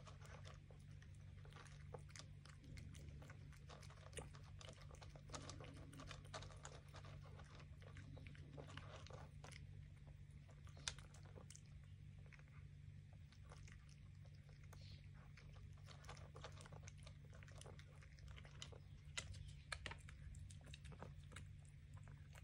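A cat eating from a bowl close by: irregular small crunches and clicks of chewing, with a sharper click about halfway through. A steady low hum runs underneath.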